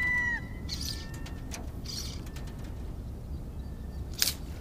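Fly line being stripped in through the rod guides in short pulls, each a soft hissing rasp about once a second, with a sharper, louder stroke near the end as the fish takes. At the very start a bird's steady whistled call with several pitches ends with a slight drop.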